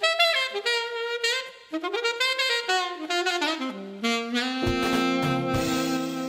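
Background music: a solo melody line that moves note to note, joined about four and a half seconds in by a fuller band with steady drum hits.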